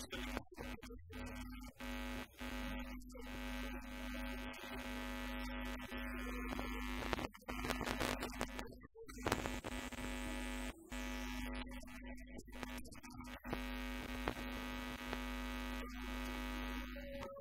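Steady electrical buzz on the audio track, a hum with many overtones, broken by repeated brief dropouts to silence.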